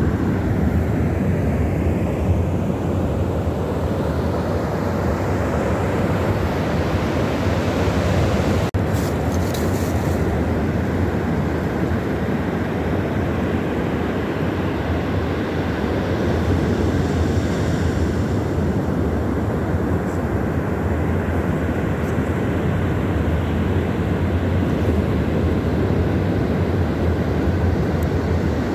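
Steady low rumble of beach wind on the microphone mixed with surf, with one momentary dropout about nine seconds in.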